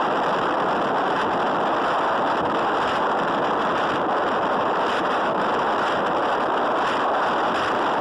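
Steady rush of wind over the microphone with road noise while riding along a road, an even, unbroken noise without distinct events.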